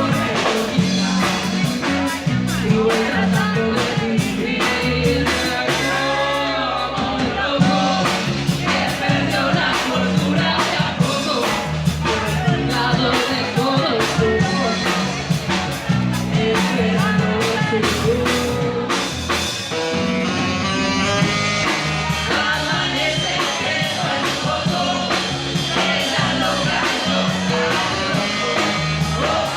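Rock band playing a song live, with a singer over a steady beat.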